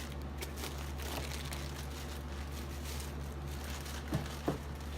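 Packaging rustling and crinkling as accessories are handled out of a camera box, with two light knocks a little after four seconds in, over a steady low hum.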